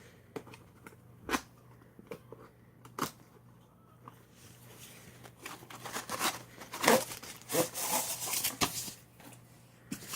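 A keyboard's cardboard box and packaging being opened by hand: scattered clicks and taps, then a few seconds of rustling and scraping from about five seconds in.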